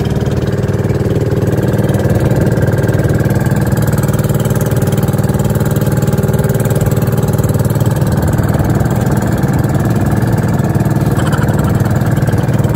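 Outrigger boat's engine running steadily underway at an even speed, with a loud low drone and a fast, even firing pulse.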